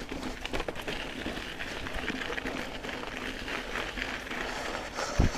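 GT Aggressor Pro mountain bike ridden over dirt singletrack: tyres running on the trail with continual rattling and clicking from the bike. There is one heavy thump near the end.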